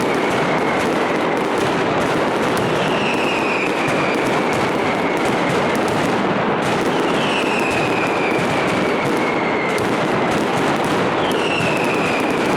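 Dense barrage of firecrackers and fireworks crackling and banging without a break. Over it, a whistling firework shrieks and falls in pitch, about every four seconds.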